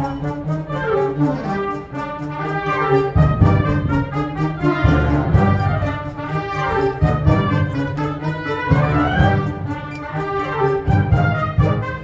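Military wind band playing, with brass, saxophones and clarinets; the low notes grow heavier about three seconds in.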